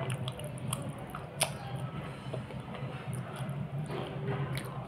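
Slate pencil being chewed close to a headset microphone: sparse sharp clicks and crunches, the loudest about a second and a half in, over a steady low hum.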